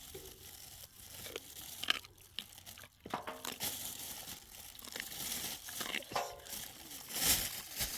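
Crinkling and rustling handling noises with scattered clicks, and a couple of short voice-like sounds.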